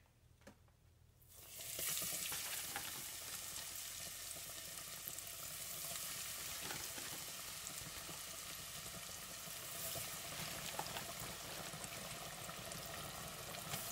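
Breaded fish fillets frying in hot oil in an electric deep fryer. The sizzle starts about a second and a half in as the fish goes into the oil, then holds steady.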